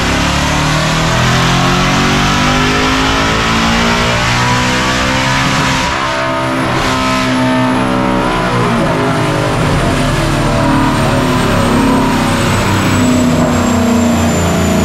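Whipple-supercharged 5.0 L V8 of a 2024 Mustang GT running loud on a chassis dyno, a steady engine note with a brief dip about six seconds in. A thin high whine slides slowly downward through the second half.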